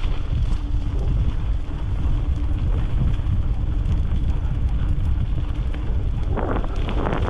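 Wind buffeting a helmet-mounted microphone over the rumble of bicycle tyres rolling fast on a dirt trail, with a rougher, louder hiss near the end.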